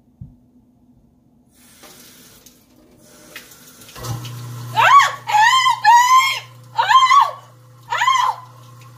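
Kitchen faucet running into the sink, then a garbage disposal switched on with a steady low hum about four seconds in. Over it a woman gives a series of loud, high screams, about five rising-and-falling cries, faking that her hand is caught in the disposal.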